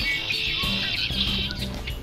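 A red-winged blackbird singing its trilled song: a long phrase at the start and a shorter one just past a second in. Background music with a low steady bass line plays under it.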